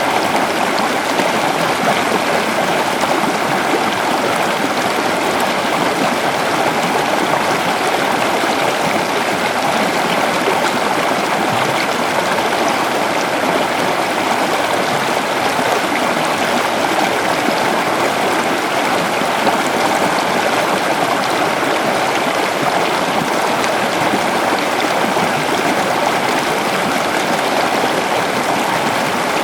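Waterfall: water falling and rushing in a steady, loud rush with no change.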